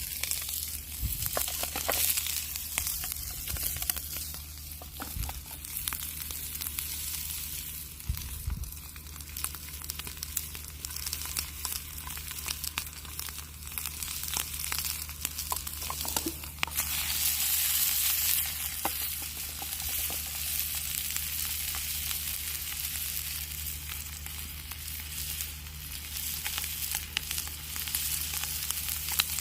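Continuous sizzling and crackling with many small sharp pops, from a small campfire fire stand, over a low steady hum; it grows louder for a couple of seconds past the midpoint.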